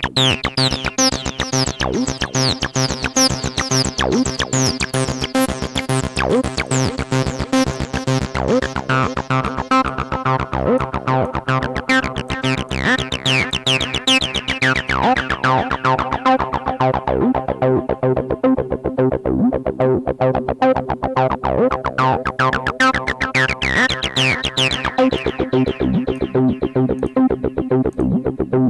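A 303-style acid bass line plays a fast, steady run of notes through a Diode Clipper distortion, with the resonant filter sweeping up and down again and again.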